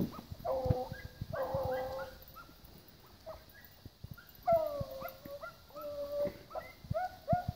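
A pack of beagles baying on a rabbit track: several hounds' drawn-out howling bays overlapping, with shorter, quicker barks near the end.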